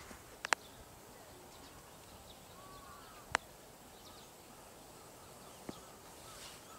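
Quiet outdoor garden ambience with a faint distant bird chirp just before the middle and a few sharp clicks, the loudest about halfway through.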